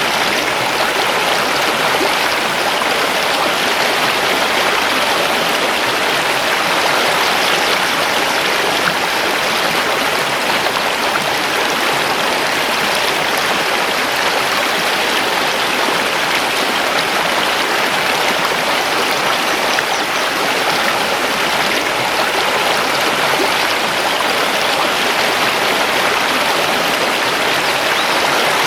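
A mountain river rushing over stones, a steady, even flow of water.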